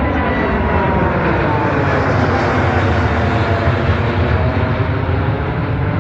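Boeing 787-9's GEnx-1B turbofans at takeoff thrust: a loud, steady jet roar with a deep rumble and a faint whining tone that slides slowly down in pitch.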